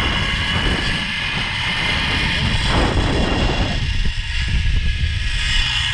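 Wind buffeting the microphone as a rider slides along a zip-line cable. Over it, the trolley's pulleys running on the steel cable give a steady high whine.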